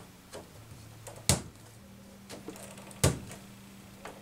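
Plastic K'nex pieces clicking as the crank section is snapped onto the top of the frame: two sharp snaps, about a second in and about three seconds in, with fainter clicks between.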